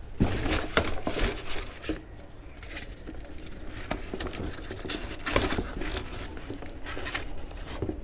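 Scattered clicks, knocks and scrapes of plastic equipment being handled: a portable pressure washer's spray gun and hoses being unfastened and taken apart.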